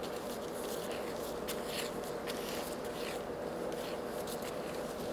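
Light scattered clicks and scrapes as gloved hands work the drill press's feed handwheel and levers, over a steady low hum.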